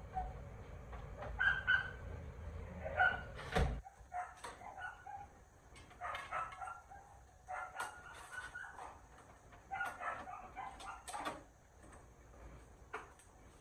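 Animal calls in irregular clusters of short, high yips and whines, with a few sharp clicks. A low hum underneath stops abruptly with a click about four seconds in.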